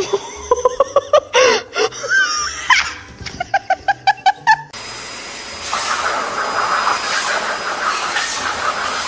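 A pet-grooming blow dryer blowing a steady loud hiss with a thin high whine, starting abruptly about halfway through. Before it comes a run of short, high-pitched calls with sliding pitch.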